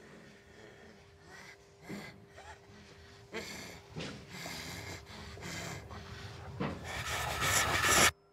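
A man panting and gasping in ragged, strained breaths that grow louder and come faster, then cut off abruptly near the end.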